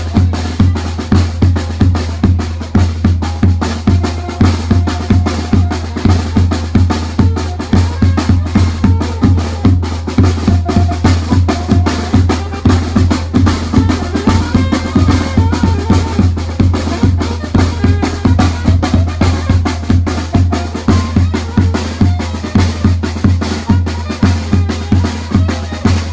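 Tamborazo band playing: the tambora bass drum and snare drum keep a steady, fast beat while brass and reed horns carry a melody over a heavy bass line.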